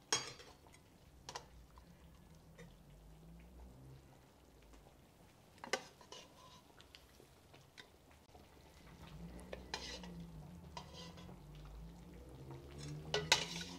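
A plastic spoon stirring chicken in chile sauce in a glazed clay cazuela, with a few sharp clicks of the spoon against the pot, the loudest right at the start, over the faint simmer of the boiling sauce.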